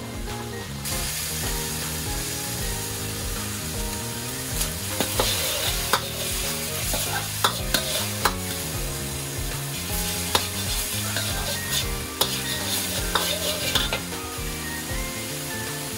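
Minced pork and seasonings sizzling in a hot wok, stirred and scraped with a metal wok ladle that clanks against the pan many times from about five seconds in. The sizzle builds about a second in as the seasonings start to fry in the oil.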